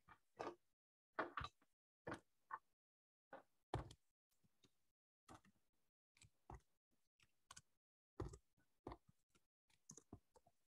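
Faint, irregular clicking of computer keyboard keys as someone types, in short runs with brief gaps.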